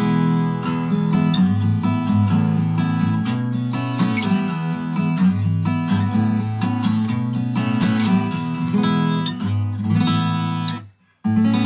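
Crafter Mind W Premium-DE all-mahogany dreadnought acoustic guitar with a solid mahogany top, played as chords with ringing open strings. The playing stops briefly near the end, then a chord rings out again.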